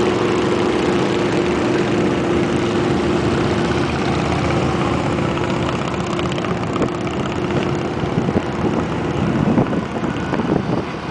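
Motorcycles and cars passing on a highway, with a steady engine drone that fades about two-thirds of the way in. Wind buffets the microphone near the end.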